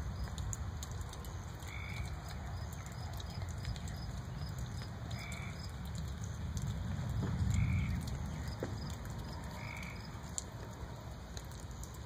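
Low rumbling of distant thunder, swelling about two-thirds of the way through. Over it, a short pitched call repeats every two to three seconds, with faint quick chirps above.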